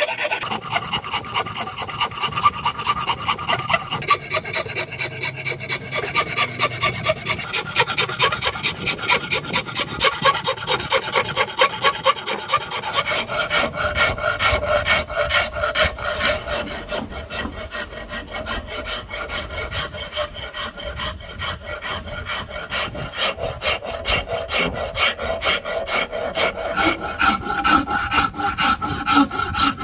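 Steel hand file rasping along a rosewood axe handle in repeated back-and-forth strokes, shaping the wood. The strokes change character about halfway through.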